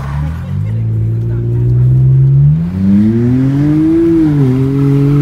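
Car engine under acceleration. Its note holds steady, then climbs, drops sharply at a gear change about four and a half seconds in, and holds again.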